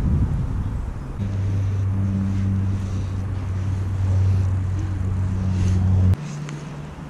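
Wind rumble on the microphone, then a steady low mechanical hum from about a second in that cuts off abruptly about six seconds in.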